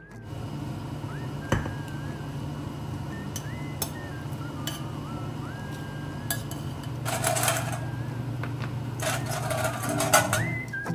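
Kitchen cooking sounds: a steady low hum with a few sharp clinks, and two short bursts of hissing near the end. Faint background music with whistling plays underneath.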